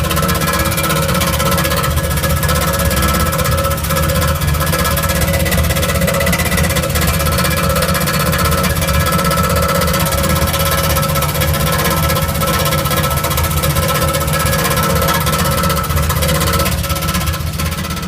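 1977 Chevrolet Camaro engine running steadily, making a noise the owner calls weird; its cause isn't given.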